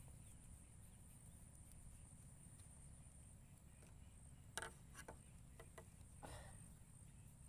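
Near silence: faint outdoor ambience with a steady high insect hum, broken a little past the middle by a few faint clicks and taps.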